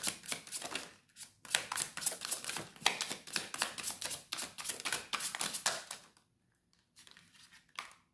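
Tarot cards being shuffled by hand: a fast run of papery flicks and riffles for about six seconds, then a brief pause and a few softer card sounds near the end as a card is laid down.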